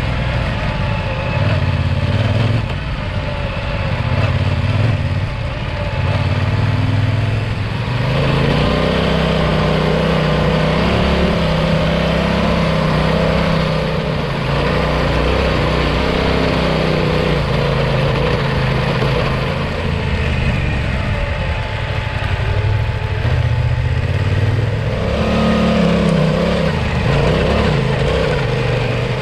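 Yamaha Ténéré 700 parallel-twin engine running under way, its pitch rising and falling as the revs change.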